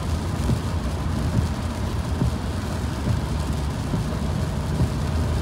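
Steady road noise inside a car driving on a wet highway: a low engine and tyre rumble with a hiss of rain and tyre spray.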